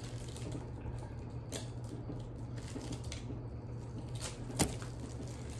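Faint handling noises of candy and small bags being sorted over a steady low hum, with one sharp click a little over four and a half seconds in.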